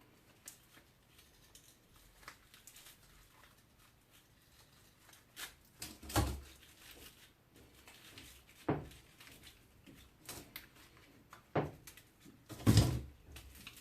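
Scattered knocks and clicks of hand tools and parts being handled while the copper winding is worked out of a strimmer's electric motor; the loudest knocks come about six seconds in and near the end.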